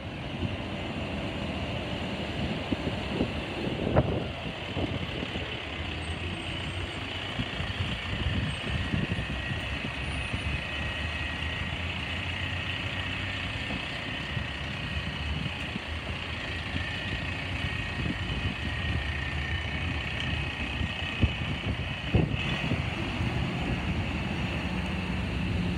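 Side-loader garbage truck's diesel engine running steadily as the truck drives slowly past and turns in. There are two sharp clicks, about four seconds in and near the end.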